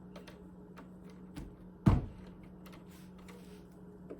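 Light scattered clicks and taps of a screwdriver and small screws being handled, with one loud knock about two seconds in, over a steady low hum.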